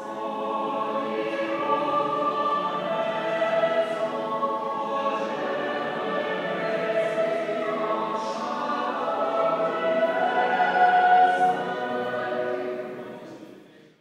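Cathedral choir singing at Evensong, in long held chords in a stone nave. The sound fades out over the last second or so.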